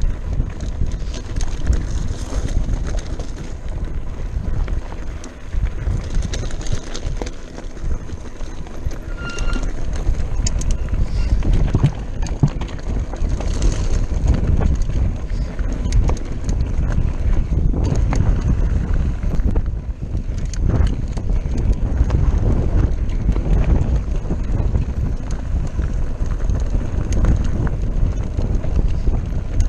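Mountain bike riding over a rocky, gravelly singletrack: constant wind rumble on the microphone with the tyres crunching over stones and the bike rattling and knocking over the rocks.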